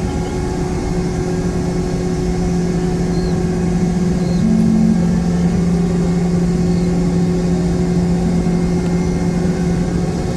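Steady engine hum heard inside the cabin of a Boeing 717 taxiing after landing, from its two rear-mounted Rolls-Royce BR715 turbofans, with a brief rise in pitch about four and a half seconds in.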